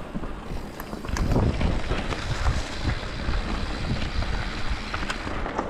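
A mountain bike descending a rocky trail: wind buffets the microphone and the tyres rumble over rocks, with scattered sharp clicks and clatter of rocks and the bike. It grows louder about a second in.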